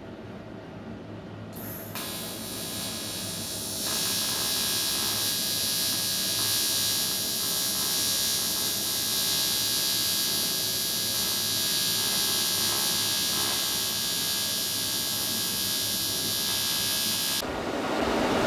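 TIG welding arc on a metal gate frame: a steady hiss that starts about two seconds in, grows louder about four seconds in, and cuts off sharply near the end, over a low steady hum.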